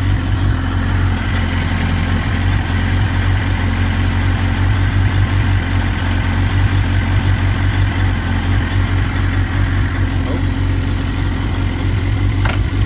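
Suzuki GSX-R1000 K1's inline-four engine idling steadily in neutral.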